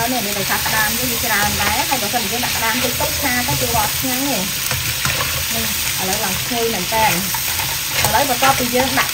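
Pieces of blue swimmer crab sizzling in oil in a wok while a spatula stirs and tosses them, the shells scraping against the pan in a steady stir-fry.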